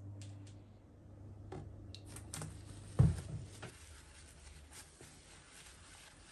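Kitchen handling noises: a few light clicks and taps, one low knock about three seconds in (the loudest sound), then a soft rubbing as a hand wipes around the inside of a ceramic bowl.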